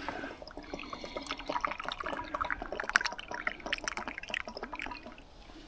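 Tea being poured: a trickle of liquid with small clicks and splashes, dying away near the end.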